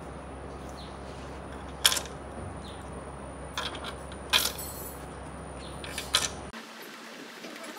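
A handful of sharp clicks and knocks of hard plastic as a hand handles the black plastic subwoofer cabinet at its corner foot sockets, the loudest about two seconds in. A steady low hum underneath cuts off abruptly about six and a half seconds in.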